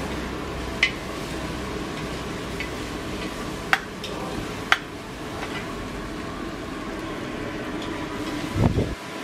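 Char kway teow being stir-fried in a carbon-steel wok: the noodles sizzle while a metal wok spatula and ladle scrape and toss them, over a steady rushing noise. The utensils strike the wok with sharp clinks three times, and a dull thump comes near the end.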